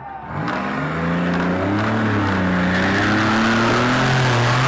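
Demolition drag car's engine revving up sharply about half a second in, then running hard at a roughly steady pitch that wavers, with a broad rush of noise.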